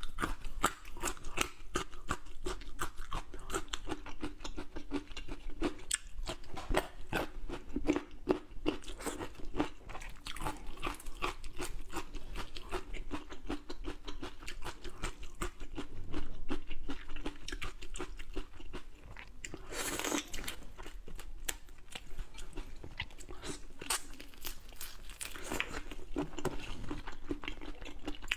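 Close-miked eating sounds: a large prawn's shell cracking and crackling as it is torn apart and peeled by hand, with wet chewing and crunching. A dense run of small clicks, with a louder crackle about twenty seconds in.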